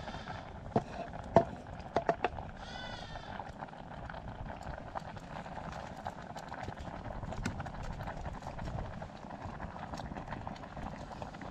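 Four sharp knocks in the first two and a half seconds, then a short, arching call about three seconds in, over a steady background noise.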